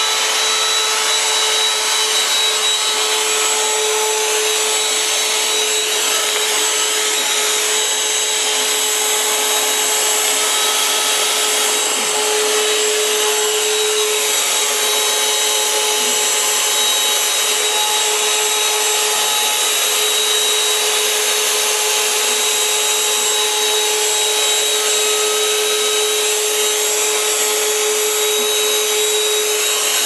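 Electric blower of a homemade air-conditioned suit running steadily, a steady whine over a rush of air, forcing air in through the top of the suit.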